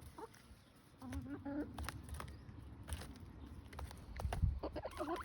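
Domestic hens clucking in short calls that bend in pitch, with scattered light clicks and a brief low rumble about four seconds in.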